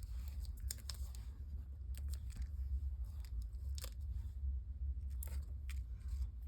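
Paper crafting being handled at close range: scattered small rustles, crinkles and light tearing sounds of cardstock and adhesive being worked by hand, over a low steady hum.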